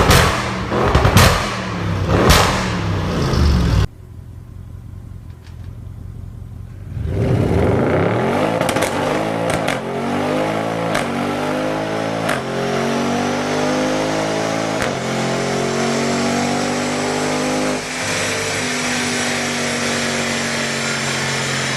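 Audi RS6 C7 Performance's twin-turbo 4.0-litre V8 through an aftermarket sports exhaust: three loud bursts in the first few seconds, then after a quieter stretch a hard acceleration up through several gears. Its pitch rises and drops back at each upshift, and it settles to a steady drone near the end.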